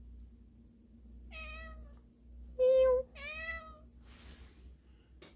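Domestic cat meowing three times in quick succession, the second meow short and the loudest.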